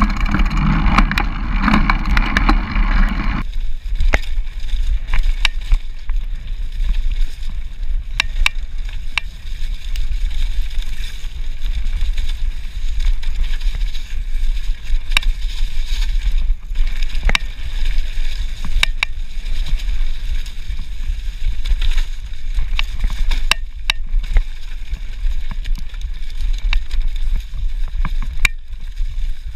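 Mountain bike rolling fast down a rough leaf-covered trail: steady wind rumble on the microphone with frequent sharp clicks and rattles from the bike jolting over roots and bumps. The sound changes abruptly about three and a half seconds in.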